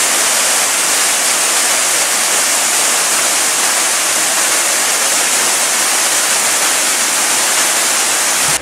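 Waterfall pouring down a rock face: a loud, steady rush of falling water.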